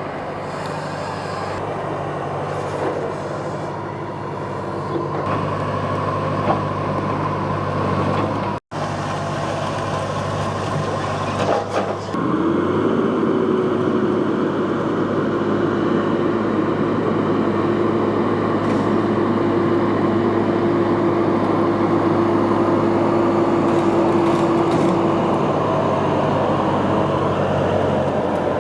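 Farm machinery engine running steadily, with a low hum, a sudden cut about nine seconds in, then from about twelve seconds a higher, steady engine note that holds for some thirteen seconds before easing off.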